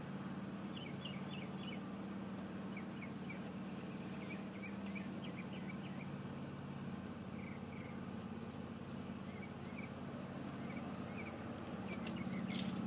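Steady low hum of an idling engine, with small birds chirping repeatedly over it and a few sharp clicks near the end.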